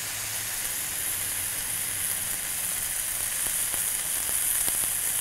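Smashed 80/20 ground-beef patty sizzling steadily on a hot griddle under a steel burger smasher, with scattered small pops and crackles of fat.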